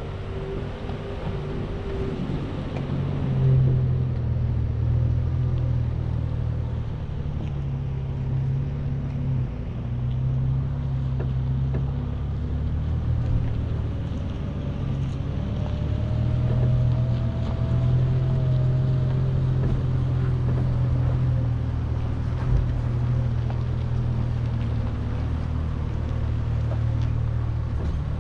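Chevrolet Colorado ZR2 pickup crawling up a rough dirt trail, heard from inside the cab: a steady low engine and drivetrain drone. A fainter higher whine rises and falls around the middle, with a few light knocks from the track.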